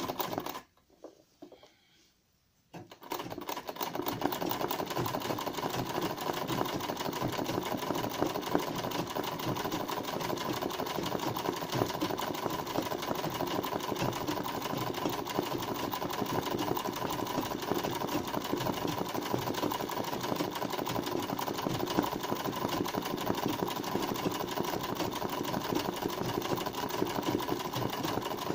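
Household sewing machine stitching freehand machine embroidery. It stops briefly just after the start, then starts again about three seconds in and runs steadily at an even speed.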